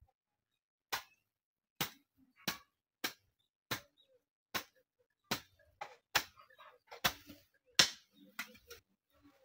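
Hand hoe (jembe) chopping into soil, digging: about a dozen sharp strikes, one every second or less, starting about a second in.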